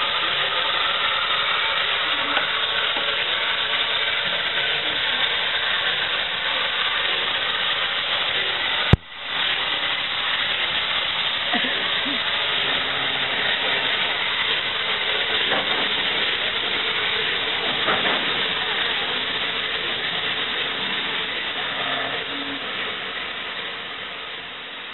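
Steady loud hiss of steam escaping from Battle of Britain class steam locomotive 34053 'Sir Keith Park', with a momentary break about nine seconds in, fading away near the end.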